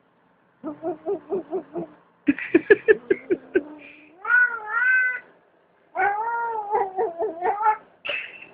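Domestic cat yowling and meowing in distress while being held: first short, quick pulsing cries, then two long drawn-out wavering yowls.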